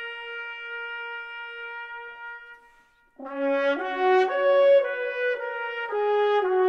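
Solo trumpet music. A long held note fades out about three seconds in, and after a brief gap a slow melody of stepped notes begins, rising and falling.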